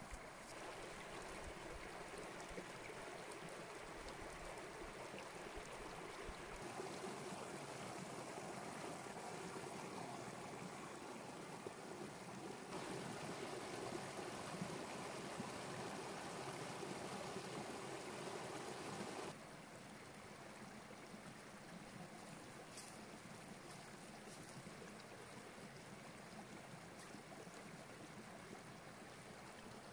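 Small forest brook running over rocks: a steady rush and burble of flowing water. Its level jumps up and down a few times, loudest in the middle stretch where the water cascades over a rock ledge.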